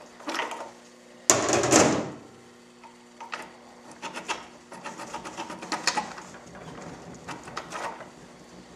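Overdrive brake steel plates and worn friction discs of a 48RE automatic transmission being pulled by hand out of the overdrive housing: a loud metallic clatter about a second and a half in, then scattered light clinks and scrapes of the plates.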